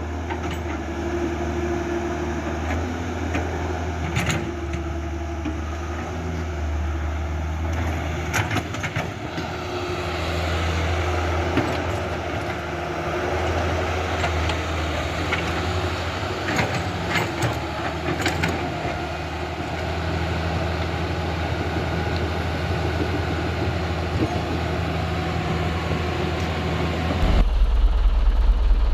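Construction machinery engine running steadily with a low hum, with a few short clanks along the way; about 27 seconds in the sound changes abruptly to a deeper, plainer hum.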